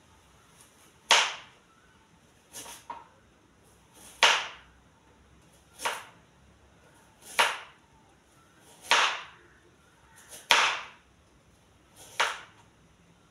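Kitchen knife slicing through a vegetable onto a plastic cutting board, one slow cut about every one and a half seconds, each a short crisp stroke.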